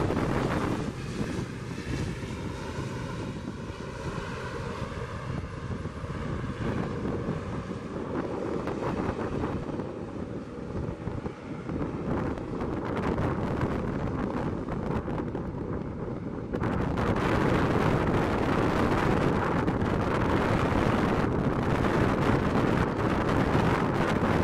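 Twin turboprop engines of an ATR 72-600 airliner (Pratt & Whitney PW127M) running as it moves along the runway, with wind on the microphone. The sound steps up abruptly and stays louder about two-thirds of the way through.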